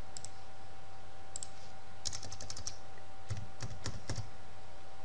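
Typing on a computer keyboard: two light clicks in the first second and a half, a quick run of about eight keystrokes about two seconds in, then a few heavier key presses with a low thump. A steady hum runs underneath.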